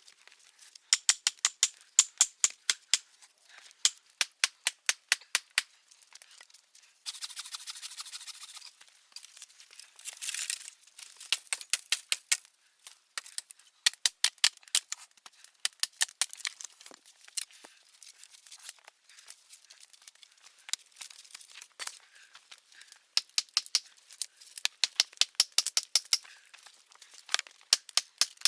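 Rapid runs of sharp, high clicking taps, several a second, stopping and starting, with a brief hiss about seven seconds in.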